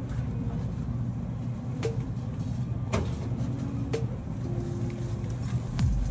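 Grocery store background: a steady low hum with faint steady tones, broken by a few sharp clicks roughly a second apart.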